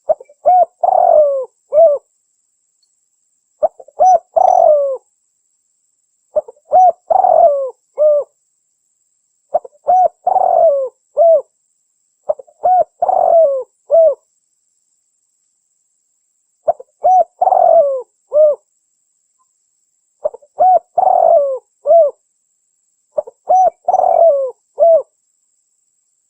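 Spotted dove (Spilopelia chinensis) cooing: a phrase of a few short coos running into a longer, dropping coo and a last short note, repeated eight times about every three seconds with silence between.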